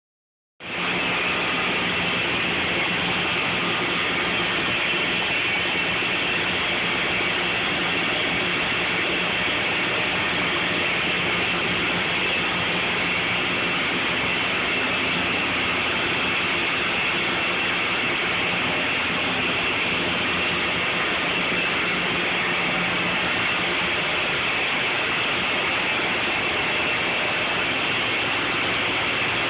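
Olive oil mill machinery running: a steady, even mechanical din with a low hum through it, from the oil separator and its electric motor.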